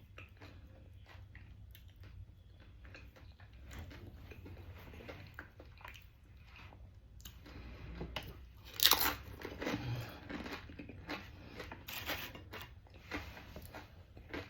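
A person biting and chewing crunchy food close to the microphone, with irregular crunches throughout. The loudest bite comes about nine seconds in.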